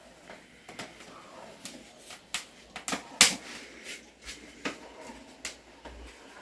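Scattered sharp clicks and light knocks from cooking at a wood-fired stove, coming irregularly, with the loudest about three seconds in.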